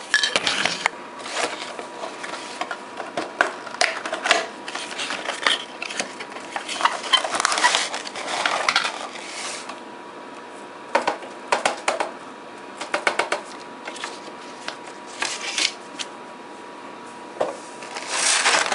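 Hands unpacking a boxed model airplane: rustling, scraping and clicking of cardboard and plastic packaging in irregular bursts, busiest in the first half, with a burst of rustling near the end.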